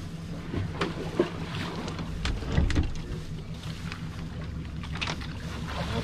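Boat motor running steadily at low speed, a low hum, with scattered knocks and clicks on the boat; the loudest knock comes about two and a half seconds in.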